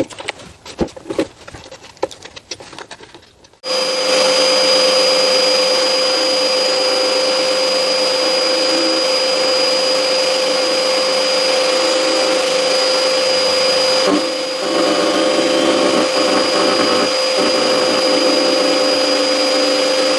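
A few light clicks and knocks of handling, then about four seconds in a router starts abruptly and runs steadily with a high whine, cutting the internal thread of a wooden nut in a threading jig with a side V-grooving bit. This is a test cut with a shim at the stop block, short of the final depth.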